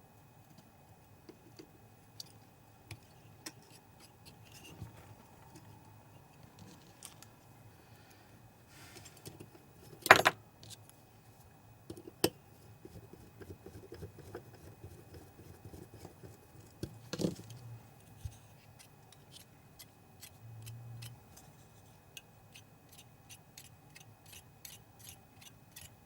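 Small metal and plastic parts of a DLP projector's colour wheel assembly being handled and fitted: scattered light clicks, a sharp knock about ten seconds in and two more near twelve and seventeen seconds. Near the end comes a run of evenly spaced ticks, about three a second.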